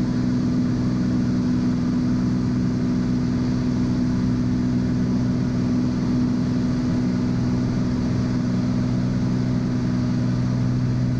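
Steady drone of a Beechcraft Bonanza's six-cylinder Continental IO-550-B engine and Hartzell Scimitar propeller, heard inside the cabin in flight. The pitch holds steady while the throttle is eased back slowly to test the gear warning.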